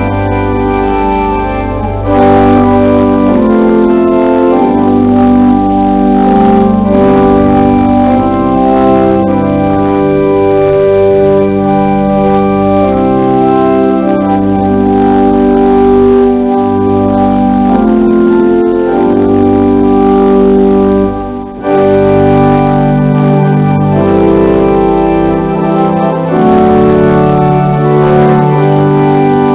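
The pipe organ of Inverness Cathedral playing loud sustained chords over a deep pedal bass, the chords changing every second or two. It breaks off briefly about three-quarters of the way through before the chords resume.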